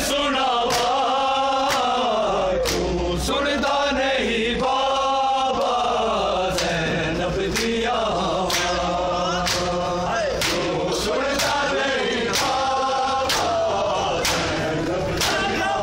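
Crowd of men chanting a noha, a mourning lament, in unison, with hand strikes on bare chests (matam) landing about once a second in time with the chant.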